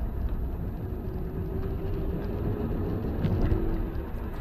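Truck driving along at low speed: steady low engine and road rumble heard from a dashcam in the cab, with a faint steady hum through the middle.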